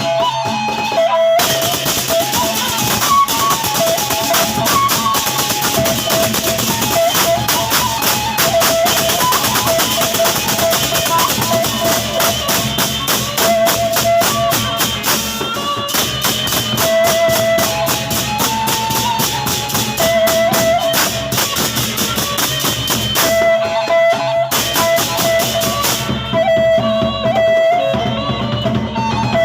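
Gendang beleq ensemble playing: Sasak drums and cymbals in a fast, dense beat with a melody running over it. The cymbal strokes drop out briefly twice near the end.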